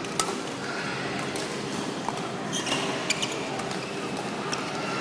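Badminton rackets striking the shuttlecock in a doubles rally: a few sharp, separate hits, with shoes squeaking briefly on the court floor. Over a steady hall hum.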